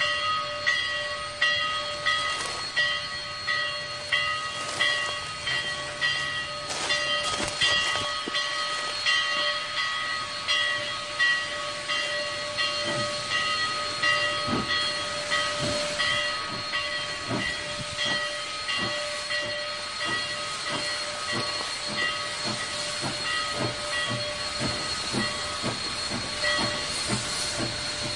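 Denver & Rio Grande Western No. 464, a narrow-gauge K-27 'Mudhen' 2-8-0 steam locomotive, working slowly toward the listener with steam hissing from its open cylinder cocks. Exhaust chuffs grow plainer and closer together in the second half. Throughout there is a ringing, bell-like tone repeating about twice a second.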